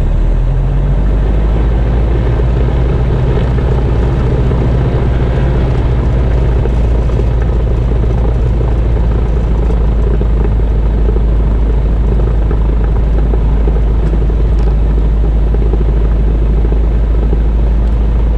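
Cessna 172RG's 180 hp four-cylinder engine and propeller running steadily while the plane taxis onto the runway, a loud even drone heard from inside the cabin.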